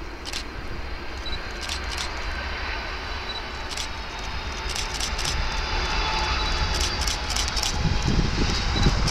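Airbus A310 jet engines as it comes in low to land, a steady rushing sound that grows louder as the aircraft nears. Low gusts of wind buffet the microphone near the end.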